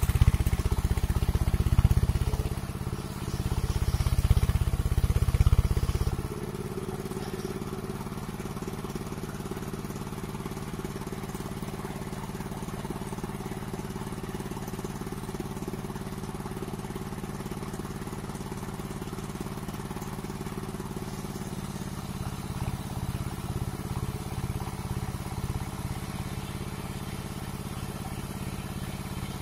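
Engine-driven mobile circular sawmill running. For about the first six seconds it is loud and heavy, with the blade cutting timber under load. Then it settles to a steady, quieter run with the blade turning free. From about two-thirds of the way through it grows louder and uneven again as the next cut begins.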